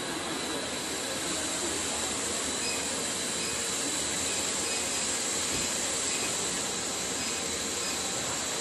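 Steady whooshing hiss with a faint high whine from machinery running, such as the cooling fan of an electrical unit.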